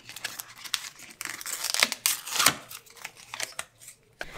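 Plastic packaging crinkling and tearing as an adhesive stick-on sponge holder is unpacked: a run of small sharp crackles, with a few louder ones around the middle.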